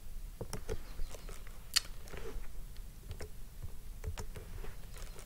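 Irregular light clicks from a computer mouse and keyboard, with one sharper click about two seconds in.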